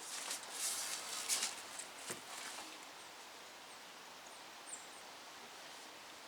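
Rustling and scraping for about two and a half seconds, with a short knock about two seconds in, then a quiet background with a few faint high chirps.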